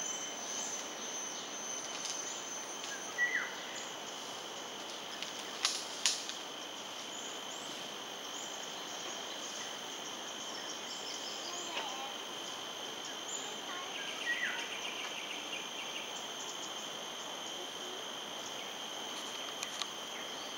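Steady high-pitched insect drone of two held tones, with two short downward-sliding bird calls, one about three seconds in and one near the middle, and two sharp clicks about six seconds in.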